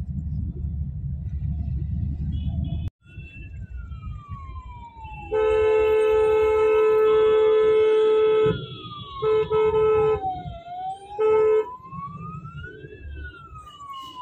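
Street traffic rumble, then, after a break about three seconds in, an emergency vehicle siren wailing slowly up and down. A vehicle horn sounds over the siren in one long blast of about three seconds, followed by two short honks.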